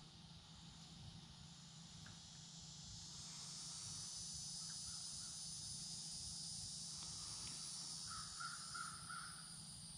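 Outdoor ambience: a steady high insect drone that swells a few seconds in, with a bird calling three times in quick succession near the end and fainter calls about halfway.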